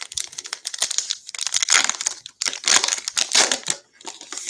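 Foil wrapper of a 2020 Bowman baseball card pack crinkling as it is torn open and pulled off the cards, in several short spells with brief gaps between them.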